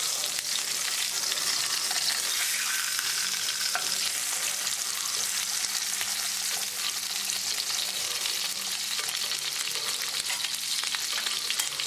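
Salmon fillets sizzling and crackling in hot olive oil in a frying pan, with a lemon butter sauce bubbling in a second pan; a steady hiss dotted with fine pops.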